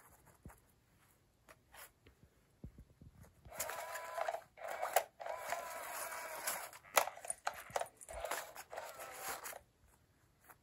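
Battery-powered SmartyKat motorized cat toy running under its nylon cover: a small motor whirs while the moving wand rustles and scrapes against the fabric. It starts a few seconds in, breaks off briefly, runs again and stops near the end, after a few faint clicks at the start.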